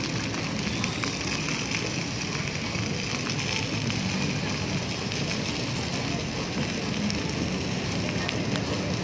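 Fountain water jets spraying and splashing back into the pool, a steady hiss like falling rain.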